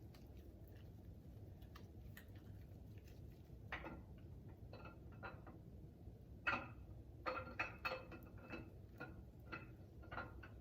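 Scattered light metallic clicks and knocks, thickest in the second half: a camshaft being worked into an LS-based engine block through its cam bearings.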